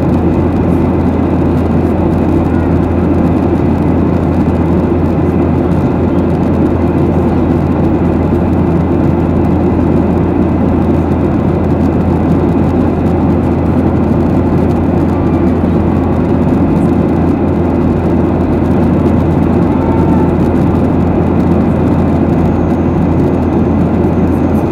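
Steady cabin drone of a Boeing 737-800 in flight, heard from inside the cabin at a window seat by the wing: a constant low engine hum from its CFM56-7B turbofans blended with the rush of airflow past the fuselage.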